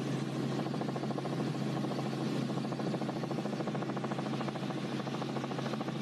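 Steady engine and rotor drone of a helicopter, heard from on board, with a fast regular chop running through it.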